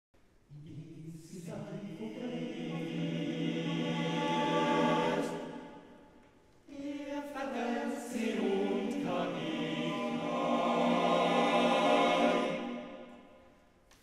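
Male choir singing a cappella in close harmony. Two long phrases: the first swells and fades away about six seconds in, the second comes in strongly soon after and dies away near the end.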